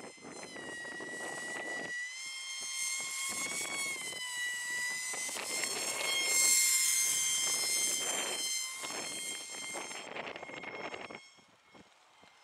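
Small 1S brushed-motor foam flying wing's motor and propeller whining in flight, the pitch wavering up and down with throttle; loudest about six seconds in as it passes close overhead, then fading away near the end. Wind rushes on the microphone underneath.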